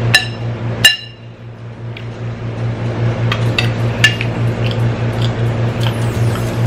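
Metal spoon clinking twice against a ceramic bowl in the first second, each strike ringing briefly, followed by lighter clicks and scrapes of the spoon in the stew. A steady low hum runs underneath.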